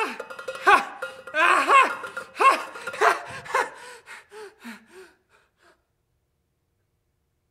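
The performer's voice in a series of short pitched vocal cries, each rising and then falling in pitch, coming closer together and growing quieter until they stop about five seconds in, then silence. A metallic ring left from an earlier stroke fades out in the first second and a half.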